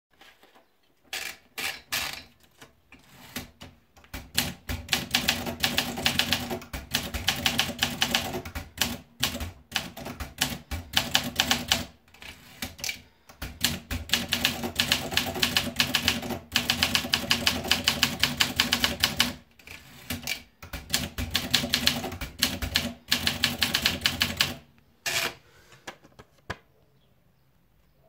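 Olympia SM4 Deluxe manual portable typewriter: a few scattered clicks as paper is fed in, then rapid runs of typebars striking the platen, broken by short pauses between lines, ending with a few last clicks.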